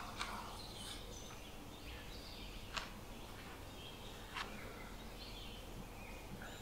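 Faint bird chirps in the background, with soft handling of wholemeal bread dough on a wooden board and two sharp clicks, one about three seconds in and one about four and a half seconds in.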